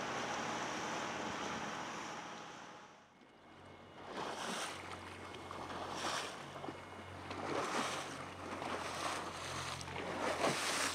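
Steady machinery hum inside a boat's wheelhouse, fading out about three seconds in. From about four seconds in, gusts of wind and wave noise on open water come over a low steady boat-engine hum.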